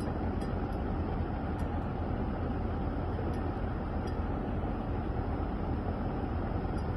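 A steady low rumbling drone that holds even and unbroken, with a few faint clinks.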